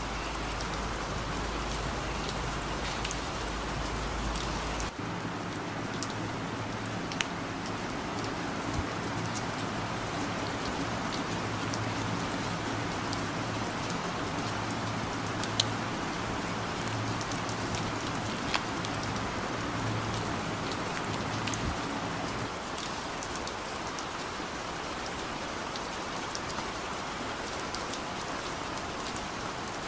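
Steady rain falling, an even hiss with a few sharp taps here and there.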